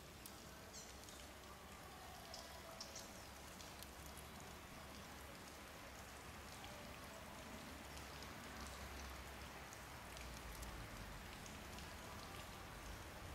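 Faint steady outdoor hiss with scattered light ticks and a few brief high chirps in the first few seconds.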